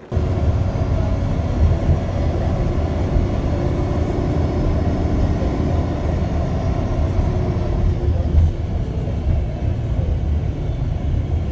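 Steady low rumble of a moving vehicle, heard from inside while it travels.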